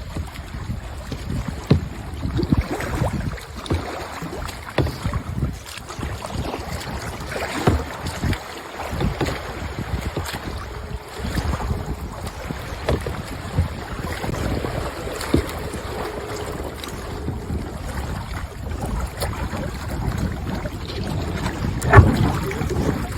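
Kayak paddling on open water: irregular paddle splashes and water slapping against the hull, with wind rumbling on the microphone. There is a sharp knock near the end.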